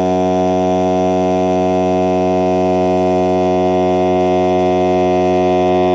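Built-in air compressor of a NOCO Boost+Air AX65 jump starter running steadily while inflating a car tyre: a loud, even motor hum.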